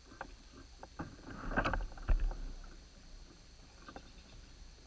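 Knocks and bumps on an Old Town Predator fishing kayak's plastic hull as the angler moves and casts, the loudest a pair of thumps about two seconds in, over a faint steady hiss.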